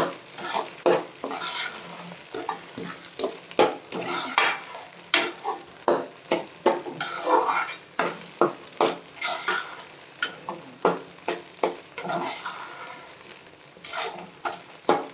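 Metal spoon scraping and knocking against a metal karahi as semolina and fried curdled-milk crumbs are stirred and roasted together for halwa, in irregular strokes about one or two a second.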